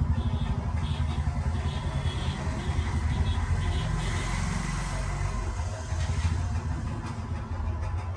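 A steady low rumble with a hiss of noise over it, like engine or traffic noise.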